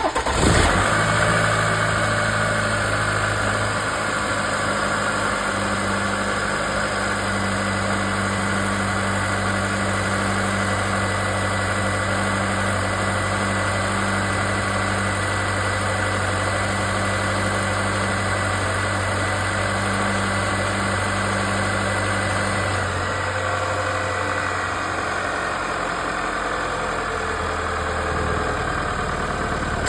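GMC/Chevrolet 2.7-litre turbocharged four-cylinder engine starting up and then idling steadily. Over the idle comes the loud noise from its wastegate actuator, a steady higher tone. Part of this tone and the low hum change about two-thirds of the way through.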